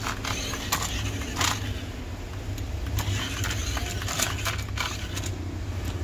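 Climbing King RC rock-crawler toy car driving and turning on a hard floor: a steady whir from its small battery-powered electric motor and rear-wheel drive, with scattered clicks and knocks throughout.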